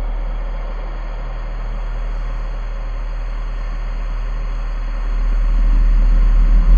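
Deep, steady rumbling drone from the fixed-media electronic part of a piece for bass clarinet and fixed media, with a hiss above it, swelling louder near the end.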